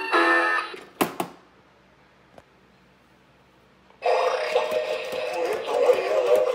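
The end of an animatronic singing lobster's electronic song, then two knocks and a pause. About four seconds in, a Big Mouth Larry Lobster animatronic, set off by its plaque button, starts singing a song through its small built-in speaker, with sharp clicks throughout.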